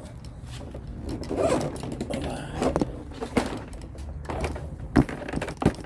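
Handling noise: a cloth rag rustling as it is pulled out and laid down, with the camera being moved about, scattered light clicks and two sharp knocks near the end.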